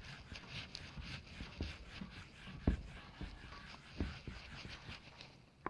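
Whiteboard eraser wiping across a whiteboard in repeated rubbing strokes, faint, with a few light knocks.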